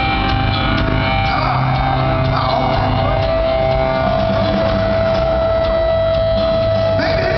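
Rock band playing live through a concert sound system, heard from among the audience, with drums and guitars; about three seconds in a single long note is held at one pitch.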